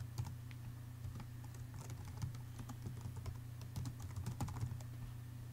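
Typing on a computer keyboard: irregular keystroke clicks in short runs, busiest about two and four seconds in, over a steady low hum.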